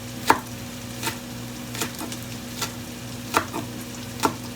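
Chopped onion, celery and garlic sizzling in olive oil in a pan, with a utensil knocking against the pan six times at an even pace of a little over one a second while the vegetables are stirred. A steady low hum runs underneath.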